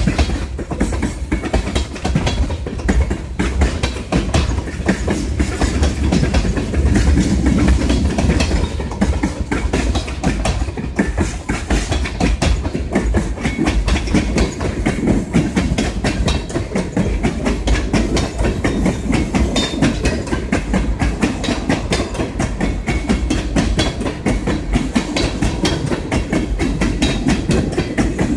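Freight train of railroad tank cars rolling past, loud and steady: a low rumble with the steel wheels clicking rhythmically over the rail joints.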